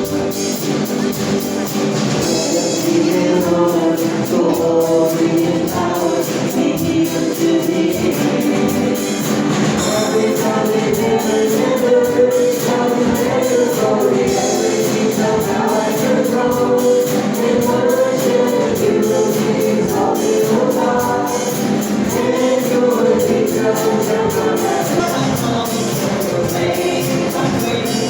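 Church worship music: a group of voices singing together over instrumental backing.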